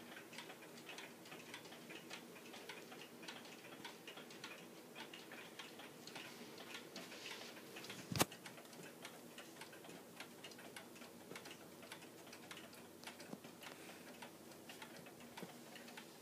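Cuckoo clock's pendulum movement ticking steadily while the clock is shifted side to side on the wall to put it in beat, aiming for an even tick-tock. A single sharp knock about halfway through.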